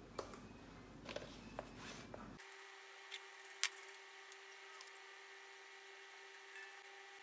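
A few light clicks and taps, like small objects being handled, over faint room noise. About two and a half seconds in, the background changes abruptly to a steady faint hum.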